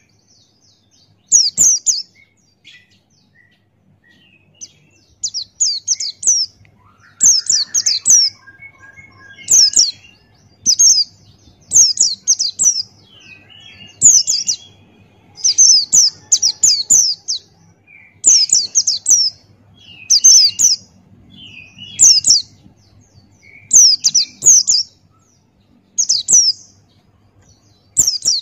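A pleci Buxtoni (white-eye) singing loudly with its beak open: short, high, quick chirping phrases repeated every second or two, with fainter, lower twittering between them.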